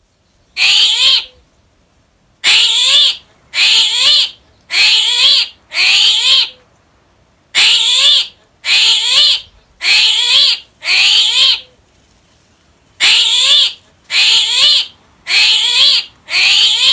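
An animal calling over and over: more than a dozen short, near-identical calls of about half a second each, coming in groups with short pauses between.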